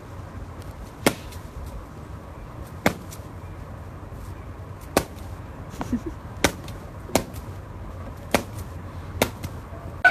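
A series of sharp taps or knocks, about seven over ten seconds at uneven intervals, over a low steady hum.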